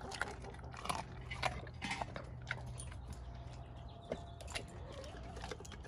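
Doberman eating a raw meal from a stainless steel bowl: wet chewing and biting with irregular sharp crunches and clicks, more frequent in the first couple of seconds.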